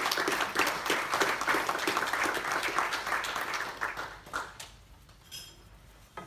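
Audience applauding, many hands clapping together, dying away a little over four seconds in, leaving a few scattered knocks.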